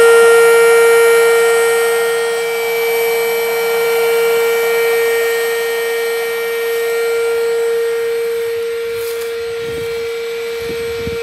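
Bravo 12-volt electric inflation pump, run off a car battery, running with a steady whine as it inflates a PVC inflatable boat. A couple of soft knocks come near the end.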